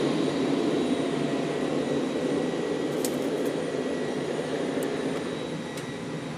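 F-15 fighter jet engines running with a steady rush that slowly eases off, with a few faint clicks past the middle.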